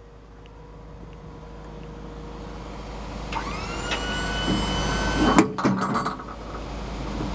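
Box truck power liftgate running under its control switch: its electric-hydraulic pump whines, rising in pitch about halfway through and then holding steady. The whine cuts off with a loud metal clunk, followed by a few rattles and knocks from the gate.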